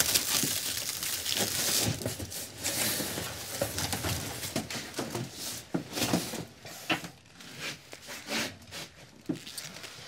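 Plastic stretch wrap rustling and tearing as it is pulled off a stack of cardboard boxes, then a series of short knocks and rustles as a box is opened and its contents handled.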